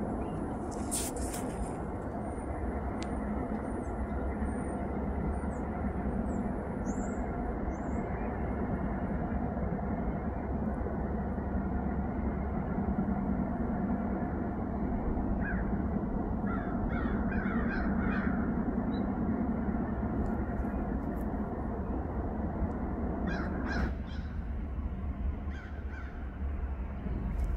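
Freight train diesel locomotives approaching, a steady low rumble. A crow caws several times around the middle.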